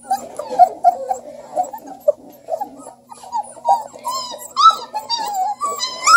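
Three-week-old Redbone Coonhound puppies crying and whimpering in many short, high calls that rise and fall in pitch. The calls come faster and louder from about four seconds in.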